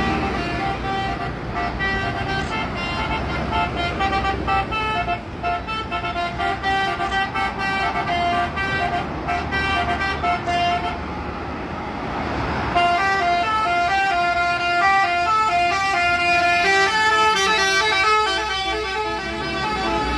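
Bus telolet horn, a multi-tone musical horn, playing a tune of short stepped notes over a steady low engine rumble. The tune breaks off briefly about two-thirds of the way through, then resumes with a faster run of notes.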